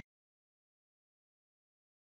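Near silence: a dead-quiet pause with no sound at all.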